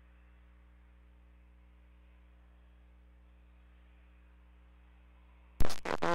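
Faint steady electrical hum and hiss on an air-band radio feed. Near the end, a sharp loud click as a transmission keys in, and a radio voice starts.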